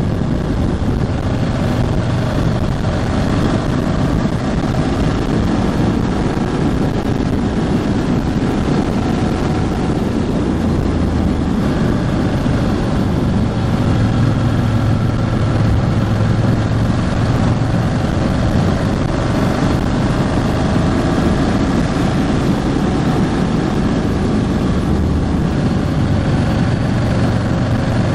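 Ducati Hypermotard 1100S's air-cooled L-twin engine running as the bike is ridden, its note rising and falling a little, with wind rushing over the microphone. The bike is in its break-in period.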